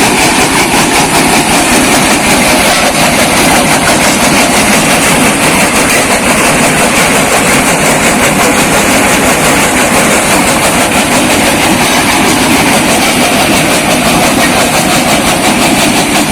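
Small brick crusher machine running and breaking bricks: a loud, steady, fast clatter that keeps on without a break.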